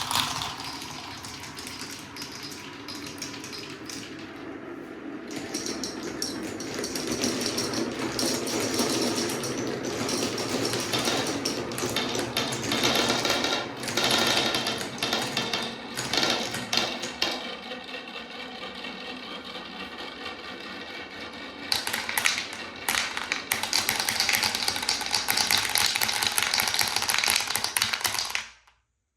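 A large number of marbles rolling and clattering down Quadrilla wooden spiral and straight slopes: a dense, continuous rattle of small knocks that swells again about three-quarters of the way through and cuts off suddenly near the end.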